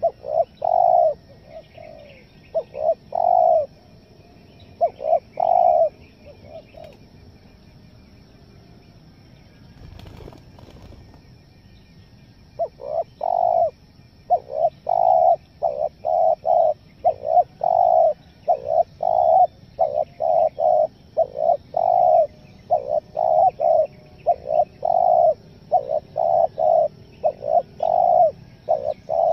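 Spotted dove cooing: a few groups of coos, a pause of about five seconds, then from about halfway a long fast run of short, stuttering coos, about two a second. Faint chirps of small birds behind.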